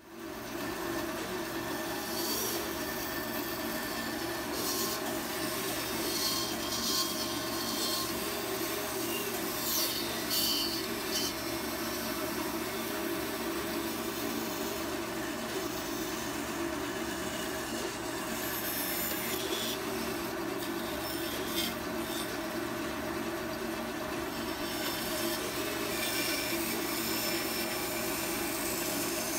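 Bandsaw running steadily and cutting a walnut saw-handle blank along a curved line, the blade rasping through the wood over the motor's hum, the cutting noise swelling and easing as the feed varies.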